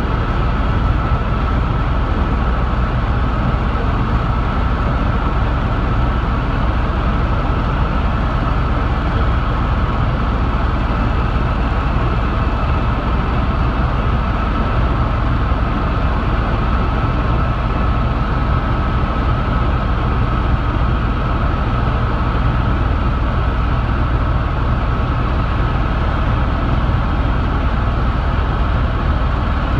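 Helicopter in flight heard from inside the cabin: the steady, loud drone of rotor and engine, a deep throb under a steady high whine, unchanging throughout.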